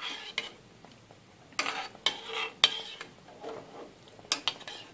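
Metal spoon stirring cubes of orange peel in liquid in a saucepan, clinking and scraping against the pot in irregular bursts, with two busier spells midway and near the end.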